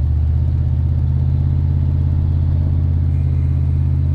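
Old second-generation Dodge pickup's engine and road noise heard inside the cab while driving, a steady low drone with a fine regular pulse.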